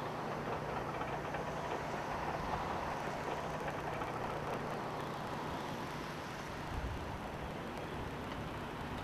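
A vehicle engine running steadily as a low, even hum under a rushing noise.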